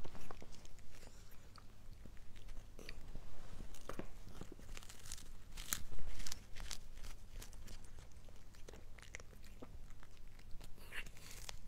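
Cat gnawing on a dry chew stick up close: irregular crunches and sharp clicks of teeth biting into it, with one louder crunch about six seconds in.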